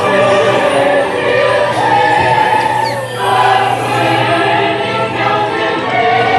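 Music with a choir of voices singing long held notes.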